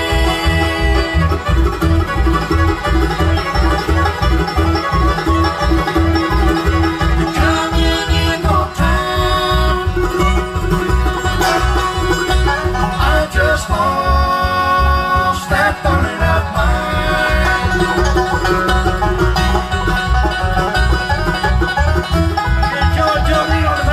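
Live bluegrass band playing an instrumental passage: banjo rolls, fiddle and acoustic guitars, heard through the stage PA, over a steady low beat.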